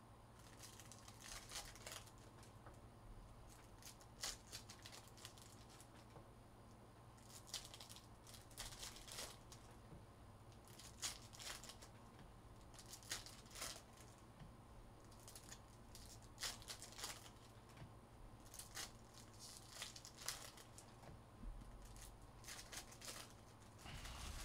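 Faint crinkling and tearing of foil trading-card pack wrappers as packs are opened, with cards sliding and being set down, in short scattered rustles every second or two.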